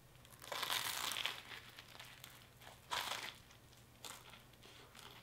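Biting into and chewing crisp golden-brown toast topped with bacon and egg: a crunch about half a second in lasting about a second, a shorter crunch around three seconds in, then a small click.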